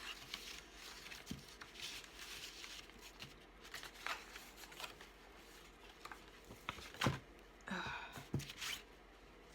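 Faint rustling and shuffling of sheets of paper being handled, with scattered soft taps, a sharp tap about seven seconds in and a longer rustle just after it.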